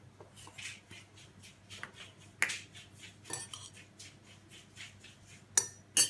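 Scattered light clicks and knocks of small plastic toys and surprise eggs being handled, with two sharper clicks near the end.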